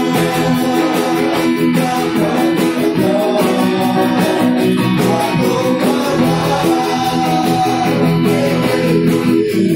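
Loud music with guitar and a steady beat, playing continuously.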